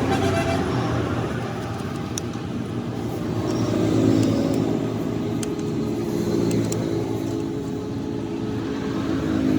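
An engine running steadily, with a few faint light clicks over it.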